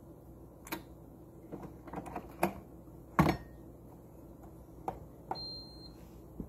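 Plastic clicks and knocks from a Ninja CFN601 espresso and coffee machine as its capsule lever and lid are worked by hand, with the loudest knock about three seconds in. A short electronic beep from the machine follows near the end.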